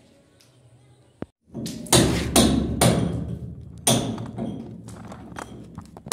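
Hammer blows on a chisel cutting a channel into a concrete block wall for wiring conduit. Starting about a second and a half in, there is a run of sharp strikes, roughly two a second, with lighter taps between, each echoing in the bare room.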